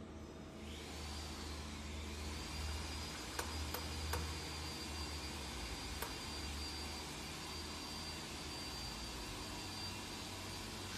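An electric motor on a sliding table saw starts up about a second in. Its whine rises in pitch, then holds steady over a low hum, with a few faint clicks.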